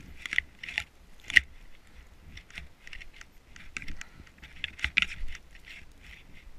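Handling noise from a chest-mounted action camera while snowboarding through deep powder: irregular crackling, scraping clicks of snow and clothing against the camera over a low rumble, with sharp clicks about one and a half seconds in and about five seconds in.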